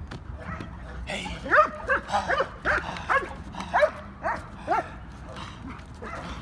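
A police working dog barking about nine times in quick succession, sharp and loud. It is agitation barking at the handler during bite-work training. The barking starts about a second in and stops just before the five-second mark.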